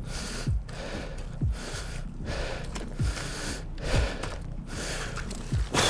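A man breathing hard in gasps and puffs, with dull low thumps of boots stepping in mud about once a second.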